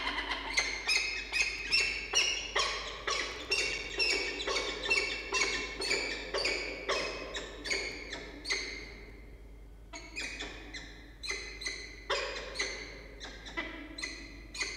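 Peregrine falcons calling: a rapid series of short, repeated notes, about three a second, with a break of about a second near the two-thirds mark before the calling resumes. It comes as one adult arrives at the nest and the brooding bird rises, a nest change-over.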